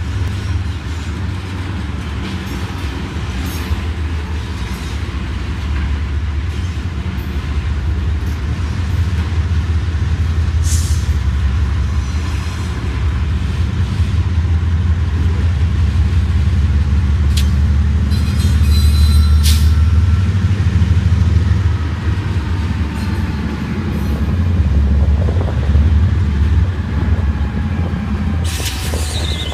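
GE diesel locomotives rumbling steadily as they shove a long train of loaded crude-oil tank cars slowly past, the rumble swelling as the engines come alongside in the second half. Occasional clanks and a faint squeal come from the cars' wheels on the rail.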